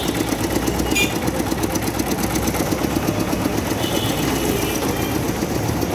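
An engine idling steadily close by, a fast, even throb.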